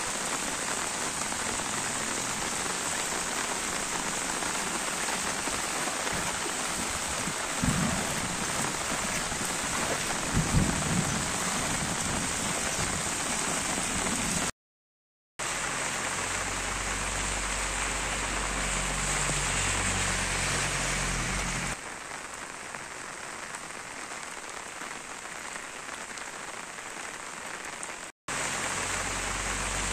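Heavy rain falling steadily on a flooded village street. The sound breaks off briefly about halfway and again near the end, and is somewhat quieter for a while after the first break.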